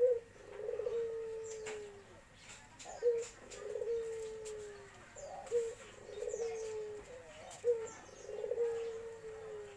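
Barbary dove (burung puter) cooing its 'kuk-geruk' call four times, about every two and a half seconds. Each call is a sharp short note, then a rolling trill that runs into a long, slowly falling coo.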